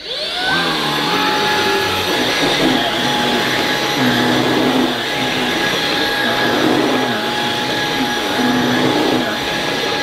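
Halo Capsule X cordless stick vacuum switching on at its low power setting, spinning up with a short rising whine and then running steadily with a high whine. Its powered brush head is pushed back and forth over thick plush carpet, the sound swelling with each stroke every couple of seconds.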